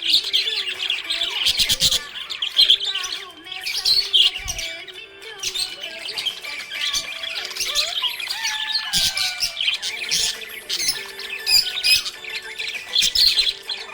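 Budgerigars chirping in a dense, busy stream of quick overlapping calls.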